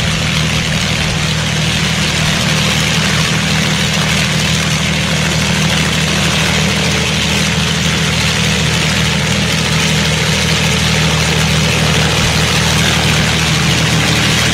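Avro Lancaster bomber's four Rolls-Royce Merlin V12 piston engines running at low taxi power, a steady multi-engine drone with propeller noise, growing slightly louder as the aircraft comes closer.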